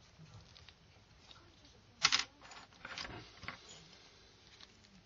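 Small plastic clicks and taps as gloved hands handle the opened phone's plastic frame and circuit board. The loudest click comes about two seconds in, with a few lighter ones about a second later.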